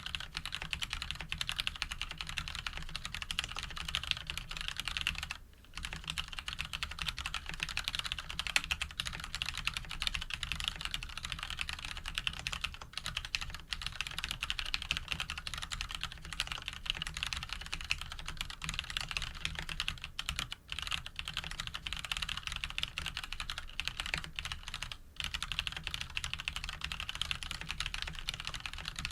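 Mechanical keyboard with Krytox 105–lubed Cherry MX Brown switches, a steel plate, Cherry stabilizers and JTK keycaps being typed on quickly and continuously, breaking off briefly three times.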